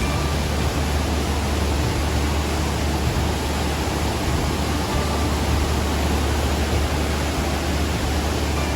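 Aira Force waterfall pouring, a loud steady rush of falling water with a deep rumble underneath; the falls are running high after heavy rain.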